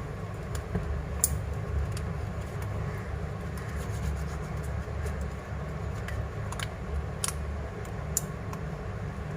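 Scattered small clicks and taps of a tool working a phone's cracked display assembly loose from its frame, a few sharper ones about a second in and near seven and eight seconds, over a steady low hum.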